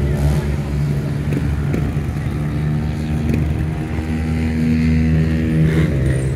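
A trials motorcycle engine running at low revs, held mostly steady, with its pitch shifting once or twice as the throttle is worked over the rocks.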